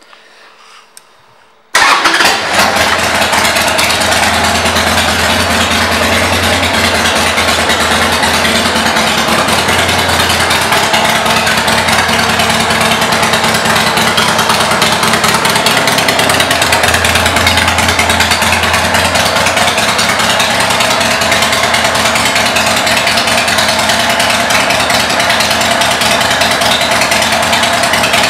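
1997 Harley-Davidson Sportster 1200's air-cooled Evolution V-twin starting, catching suddenly about two seconds in, then idling loudly and steadily.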